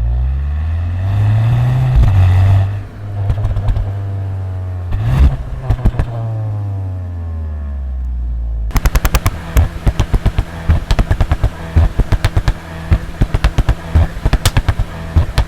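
Skoda Octavia RS engine and exhaust, revved up and dropping back twice with a few sharp pops. From about nine seconds in comes a rapid, loud string of exhaust pops, bangs and crackles from an anti-lag style tune.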